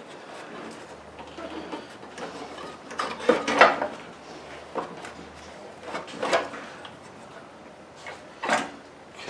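Irregular clunks and scrapes of metal parts being worked loose by hand on a push mower, the loudest knock about three and a half seconds in and another near the end.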